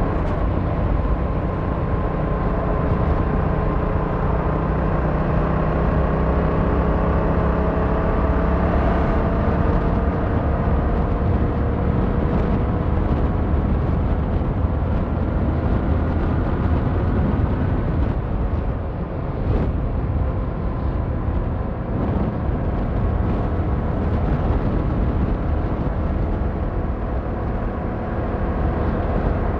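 Yamaha MT-07's 689 cc parallel-twin engine running at road speed, its pitch rising slowly over the first several seconds, with rumbling wind noise underneath. The engine eases off briefly about two-thirds of the way in.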